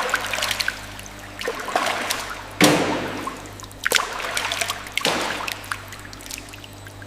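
Liquid trickling and splashing, with louder splashes about two and a half, four and five seconds in: whey draining out of a cheese vat.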